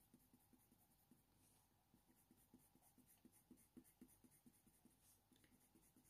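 Very faint scratching of a Faber-Castell Polychromos coloured pencil on hot-press watercolour paper, short light-pressure shading strokes repeating about three times a second.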